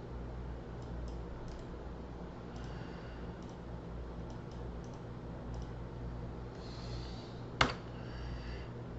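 Computer keyboard typing and scattered light clicks, with one sharp, loud click about three-quarters of the way through, over a steady low electrical hum.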